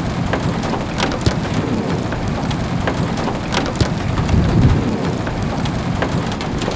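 Steady rain, with scattered sharp drop hits, over a low rumble that swells about four seconds in.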